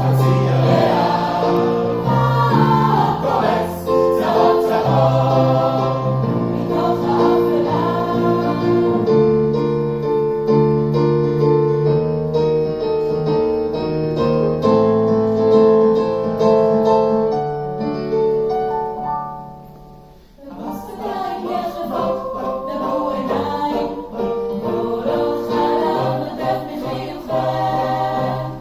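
Choir singing a Hebrew song in sustained, layered chords, recorded through a phone's microphone. Just before 20 s in the singing dies away to a short pause, then the choir comes back in.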